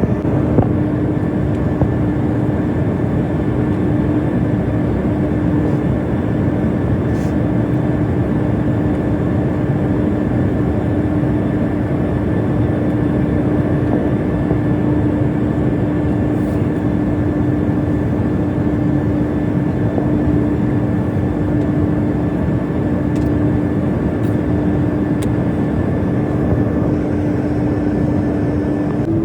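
Airliner cabin noise in flight: a steady rushing drone of engines and airflow with a constant low hum.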